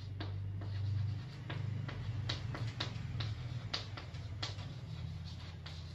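Chalk writing on a chalkboard: a series of short, irregular taps and scratches as letters are formed.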